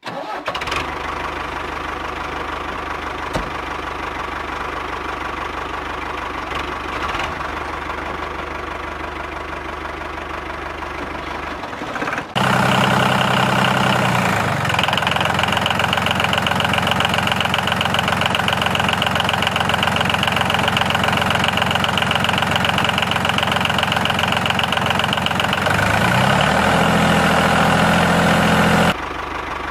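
Small tractor-style engine running steadily with a knocking beat. About twelve seconds in the sound cuts abruptly to a louder, higher-pitched run, which speeds up briefly near the end before cutting off again.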